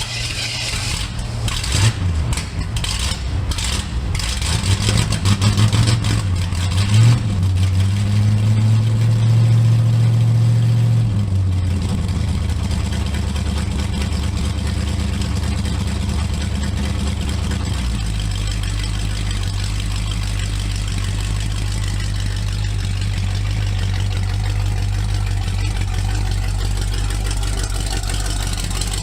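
Z28 Camaro race car's engine just fired up, revved up and down several times over the first ten seconds or so, then settling into a steady idle that drops to a lower, even note about eighteen seconds in.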